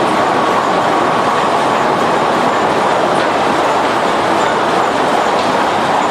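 Steady machine noise of a sawmill's lumber conveyor line running boards through a grading machine, with a faint high whine and a few light clicks.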